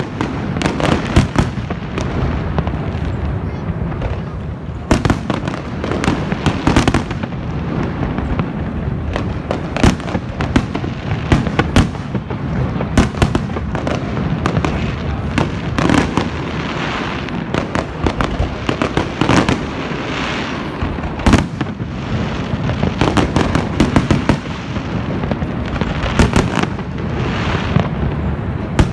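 Aerial fireworks display: a dense, unbroken barrage of sharp bangs and crackles over a steady low rumble, with a few single bangs louder than the rest.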